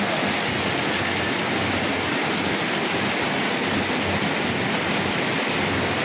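Steady rain falling, an even dense hiss with no breaks.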